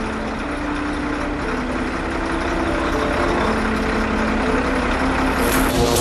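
Heavy tipper truck's diesel engine running steadily and growing louder. Just before the end, a sudden crackling burst as the raised tipper body touches an overhead power line and arcs.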